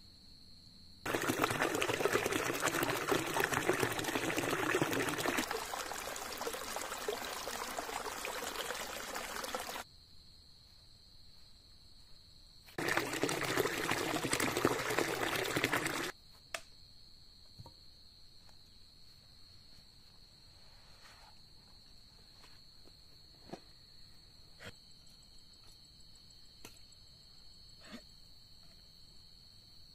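Water running and splashing down a small rocky waterfall, loud in two stretches: about eight seconds from a second in, then about three seconds more. Under it and after it, crickets keep up a steady high drone, with a few faint knocks near the end.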